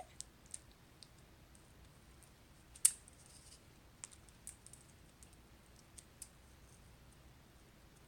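Scattered small clicks and taps over a quiet room, with one sharper click about three seconds in and a cluster of lighter clicks a little later.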